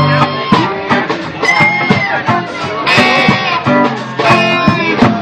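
Live band playing an instrumental passage without vocals: guitars over a drum kit, with bending guitar notes.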